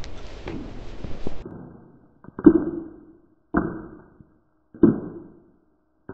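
Slow, heavy footsteps of a knight in plate armour: a muffled thud about every 1.2 seconds, each with a short ringing tail. In the first second or so there are lighter scattered steps on the forest floor.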